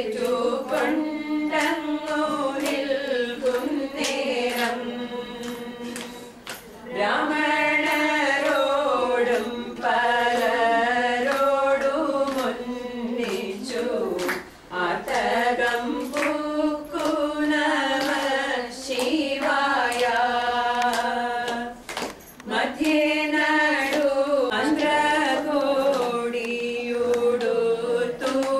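A group of voices, mostly women's, singing a song together in long sustained lines, with brief pauses between phrases.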